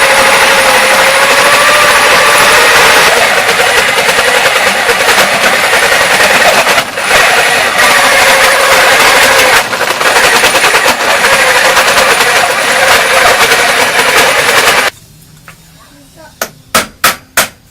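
Homemade motor-driven lathe running, a loud dense whir with a whine that wavers in pitch. It cuts off suddenly about 15 seconds in, followed by several sharp clicks.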